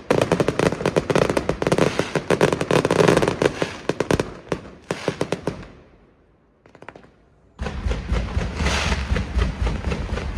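Fireworks going off in a rapid, dense string of bangs and crackles that dies away about six seconds in, leaving a short lull with one small crackle; then a loud barrage with a deep rumble starts suddenly near the end.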